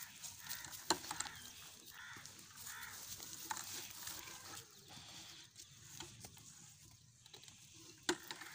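Goat drinking from a plastic bucket of water: irregular small wet sounds as it draws the water in, with a sharp knock about a second in and another near the end.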